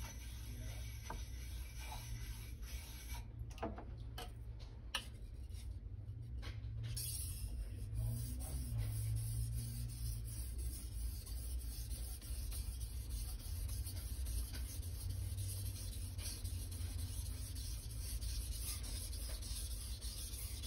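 Japanese kitchen knife being stroked back and forth over a wet whetstone, a repeated scraping rub of steel on stone, over a steady low hum.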